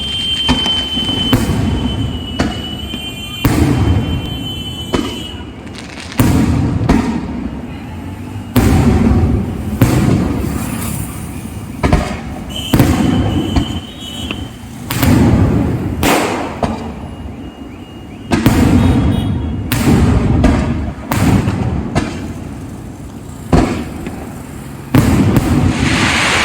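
Fireworks going off in quick succession: repeated loud bangs every second or two, each trailing off in a rumble, with a high whistle near the start and again about halfway through.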